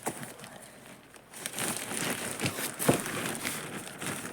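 Toy packaging crinkling and rustling as it is being opened, starting after a quiet first second or so, with irregular crackles and a sharp click near the three-second mark.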